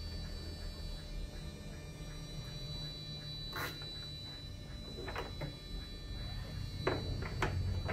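A few light knocks and clicks from hands handling wiring inside a plywood subwoofer cabinet, from about halfway through, over a steady low hum.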